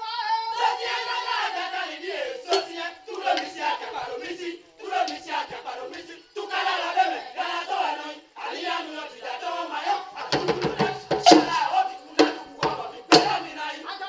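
A troupe singing and chanting together for a traditional Houngan rhythm dance. About two-thirds of the way through, sharp percussion strikes come in among the voices.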